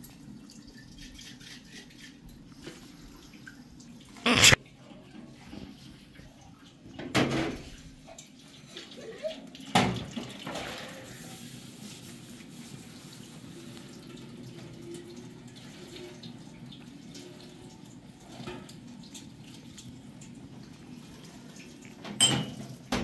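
Dishwashing at a kitchen sink: water from the tap running and splashing, with sharp clatters of dishes and a metal tray being handled, the loudest about four seconds in and others at about seven and ten seconds and near the end.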